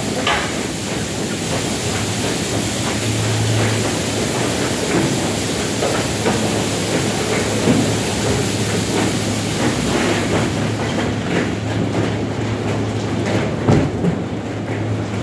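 Tunnel car wash machinery running: a steady low hum with a hiss of water spray and scattered clanks and knocks. The high hiss drops away about ten seconds in.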